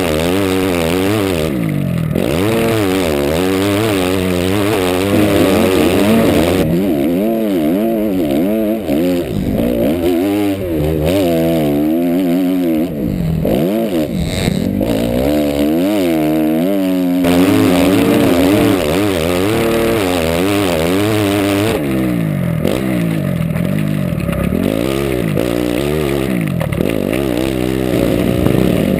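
Motocross dirt bike engine revving hard and dropping back again and again as the rider accelerates, shifts and brakes, with wind rushing over the onboard camera.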